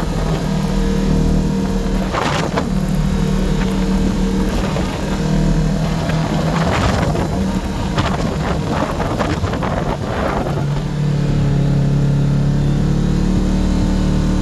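Kawasaki KRX 1000 side-by-side's parallel-twin engine running steadily while driving, with a few short bursts of hiss around the middle.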